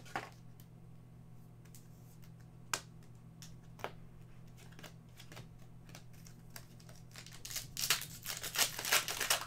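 Trading cards handled and slid against each other, with a few light clicks. About seven and a half seconds in, a card pack's wrapper is torn open and crinkled in a dense run of crackling. A steady low hum sits underneath.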